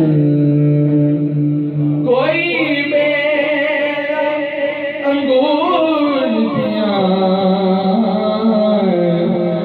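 Islamic devotional singing (naat): one voice holds a long steady note, then about two seconds in moves into ornamented, wavering runs and further held notes.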